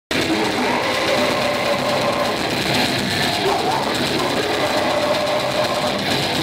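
Blackened death metal band playing live: heavily distorted electric guitars and fast drumming make a loud, dense, unbroken wall of sound that cuts in suddenly at the start.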